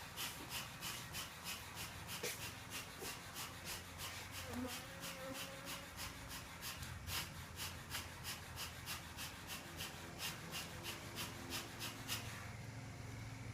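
Rhythmic rasping strokes of a hand tool working the ceiling material, about four a second, stopping about twelve and a half seconds in.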